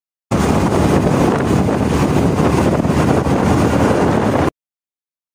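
Wind rushing over the microphone of a moving motorcycle, mixed with its road and engine noise: a loud, steady rush that cuts in suddenly just after the start and cuts off abruptly near the end.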